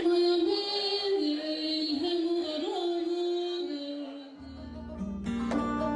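Music: a slow melody of long held notes moving step to step in pitch. About four and a half seconds in, a deep bass and sharp plucked notes come in.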